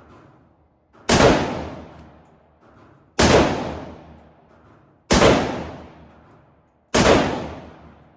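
Four gunshots from a firearm fired one at a time, about two seconds apart, each ringing out for about a second before the next.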